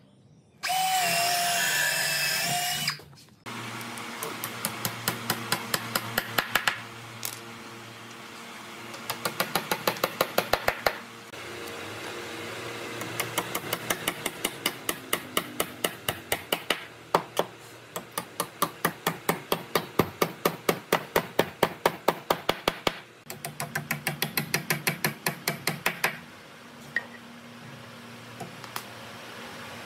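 A cordless drill runs steadily for a few seconds. Then a hammer drives wooden dowel pegs into drilled holes in the pine frame, in several runs of quick, even blows, about four or five a second.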